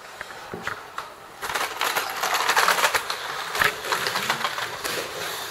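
Off-road slot car running over a plastic track: a rapid clatter of the car on the track with its small electric motor buzzing, a few clicks at first, then louder and busier from about a second and a half in.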